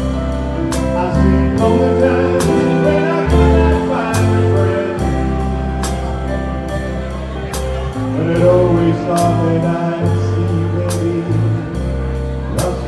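Live dance band playing a slow ballad: sustained bass notes, a melody line that bends in pitch, and a drum or cymbal hit about once a second.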